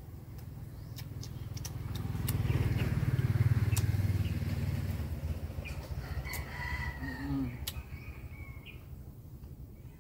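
A rooster crowing, over a low rumble that swells to a peak in the first half and then fades, with scattered sharp clicks.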